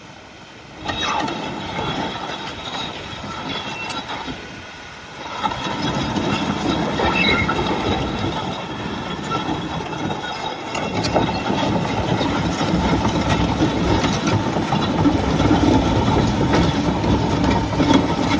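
John Deere 850K WH crawler dozer running and moving on its steel tracks, a dense, continuous clatter over the diesel engine. It starts quiet and gets louder from about five seconds in.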